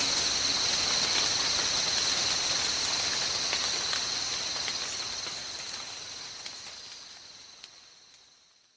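Rain ambience, a steady hiss with a high, even shimmer over it and a few light drip-like ticks, fading out over the second half to silence.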